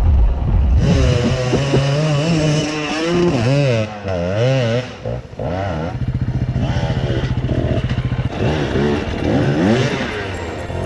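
Enduro dirt bike engines revving hard, their pitch rising and falling repeatedly. A brief drop about five seconds in is followed by a couple of seconds of steadier running, then more revving.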